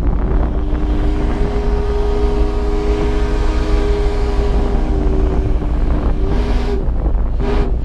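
Multi-tone steam whistle sounding a chord of several steady notes with a hiss of steam: one long blast of about six seconds, then a few short toots near the end. A constant low rumble of wind runs underneath.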